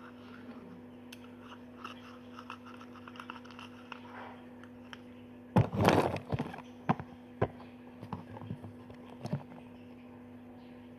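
Hands working slime and its containers: light clicks and scrapes, then a loud burst of scraping and squishing about halfway in, followed by several sharp knocks. A steady low hum runs underneath.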